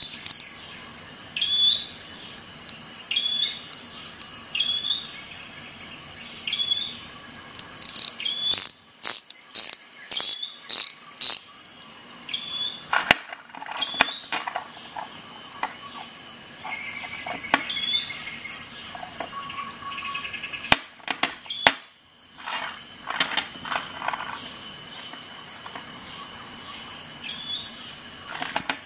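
Wera mini ratchets worked back and forth by hand: short runs of fine, rapid, high ratchet clicks, repeating about once a second, with sharper clicks and knocks in between.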